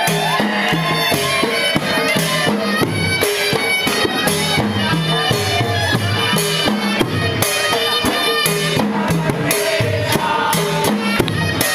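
Dhol drums beaten with sticks in a fast, busy rhythm, with a reedy, bagpipe-like wind melody played over them.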